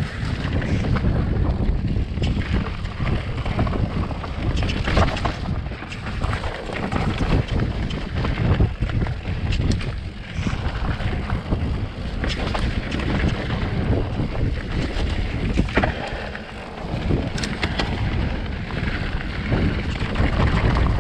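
Wind buffeting the action camera's microphone as a mountain bike speeds downhill, with a steady low rumble of tyres on dirt and rock and frequent sharp knocks as the bike clatters over stones.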